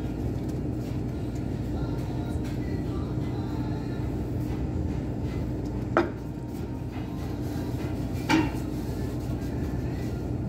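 Steady low rumble with a faint constant hum, broken by two sharp knocks about six seconds in and again a couple of seconds later.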